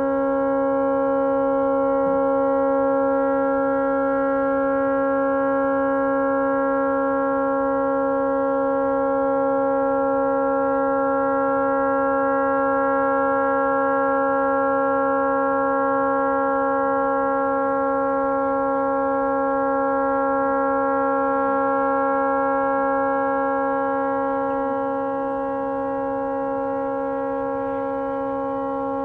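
A tugboat's horn stuck on, sounding one unbroken steady tone that dips slightly in level near the end: the horn has malfunctioned and won't shut off.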